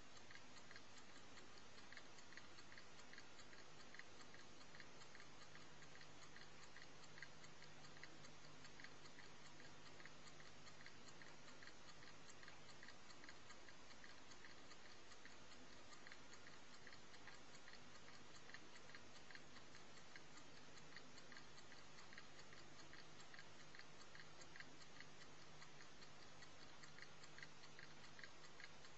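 Clock movement ticking faintly and evenly, over steady tape hiss.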